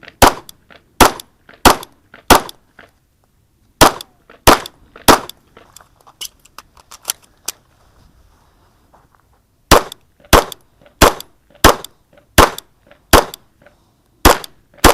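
Handgun fired in a steady string of single shots about two-thirds of a second apart: seven shots in the first five seconds, then a pause of several seconds with only faint pops, then eight more shots at the same pace.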